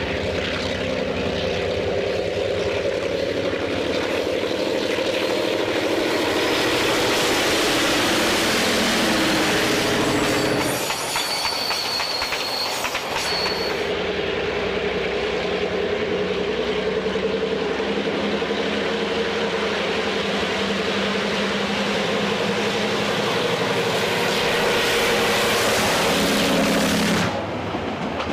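DA-class diesel-electric locomotive working a train, with a J-class steam locomotive in the consist: a steady engine drone over the clatter of wheels on the rails. About eleven seconds in the drone drops away for a few seconds and a thin high wheel squeal sounds briefly. Then the engine drone returns and breaks off suddenly near the end.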